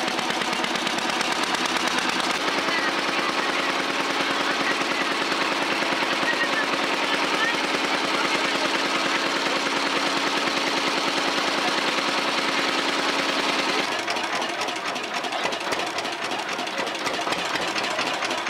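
Diesel engine of a river passenger ferry running with a rapid, steady thudding. About fourteen seconds in its steady note gives way to a rougher, slightly quieter chugging.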